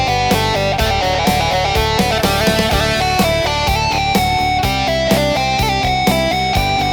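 Yamaha PSR-SX900 arranger keyboard playing music: a guitar-like plucked-string lead voice over bass and a steady drum beat.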